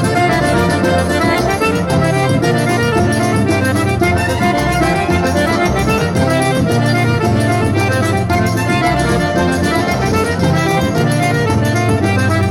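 Forró music led by a piano accordion, playing steadily.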